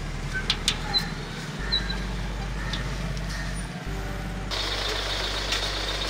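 A vehicle engine idling steadily, with a few sharp metallic clicks in the first three seconds from the iron gate's bolt and handcuffs being handled.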